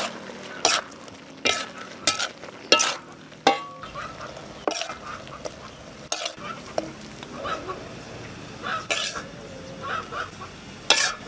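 Spatula stirring and scraping a stir-fry in a wok as the food sizzles, with sharp, irregular clanks of the spatula against the pan.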